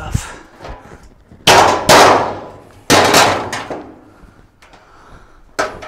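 Loud metallic clangs from the sheet-metal console and cabinet of a Kenmore washing machine being knocked while it is taken apart: two pairs of clangs about a second and a half apart, each ringing out and fading, then one shorter sharp knock near the end.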